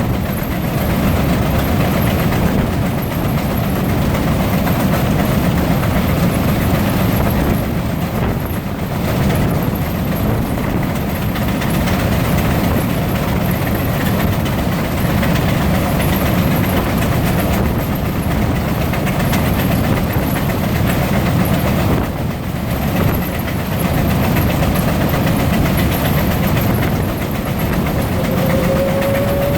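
Three Frick steam traction engines working under belt load, driving two belt fans and a power eater: a loud, steady, dense rumble of steam exhaust and machinery. A steady tone comes in near the end.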